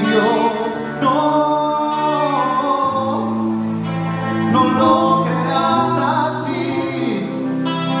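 Live Christian rock band playing, with electric guitars and sung vocals holding long notes.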